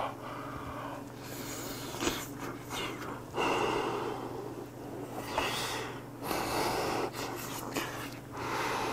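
A man eating piping-hot fish cake off a skewer, breathing hard in and out through an open mouth to cool it: a string of separate huffing breaths, with faint chewing.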